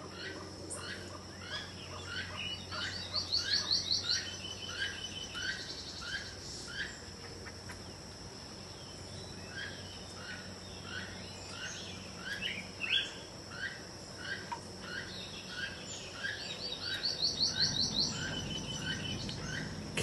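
Keel-billed toucan calling: a long series of short, dry croaks repeated about twice a second, over a steady high insect hum. Twice, a quicker run of high ticks briefly rises above it.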